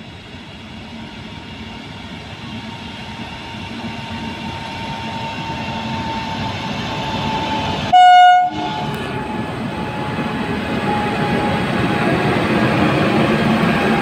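WAG-9HC electric locomotive hauling freight wagons approaching and passing, its running noise growing steadily louder, with a thin whine that drifts slightly lower in pitch. About eight seconds in, the locomotive's horn sounds one short blast, the loudest sound here.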